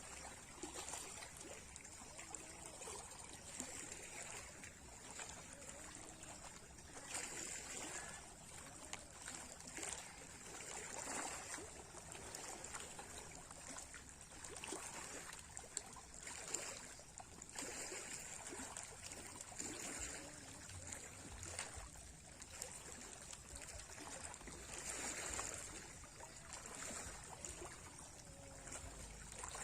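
Small sea waves lapping and washing in, swelling and easing in irregular surges every few seconds.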